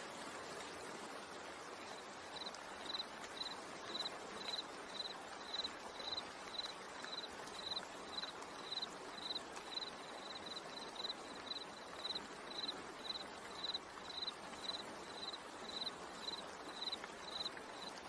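Steady rain-and-water sound bed. From about two seconds in, a short high chirp repeats about twice a second, stopping shortly before the end.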